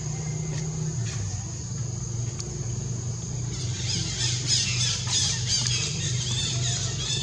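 Baby monkey giving a rapid run of high-pitched squealing calls, starting about halfway through, over a steady low hum.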